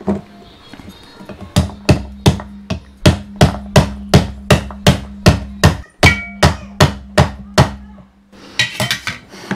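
A steel ladle knocking on the silicone lid over a pomegranate half set cut-side down on a plastic pomegranate de-seeder, about eighteen steady knocks, about three a second, starting about a second and a half in and stopping near the end. The knocks drive the pomegranate seeds out through the grid into the container.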